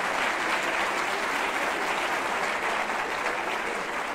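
Studio audience applauding: dense, even clapping from many hands that fades slightly near the end.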